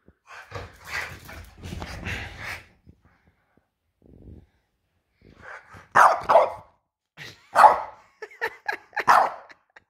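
French bulldog barking: a softer rough noise in the first couple of seconds, then a run of loud, sharp barks in the second half with small yips between them.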